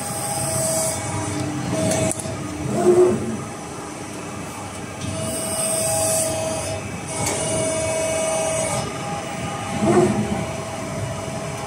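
Electric hybrid servo press brake running: a steady machine hum with a whine that comes and goes in stretches, and two brief louder surges about 3 and 10 seconds in.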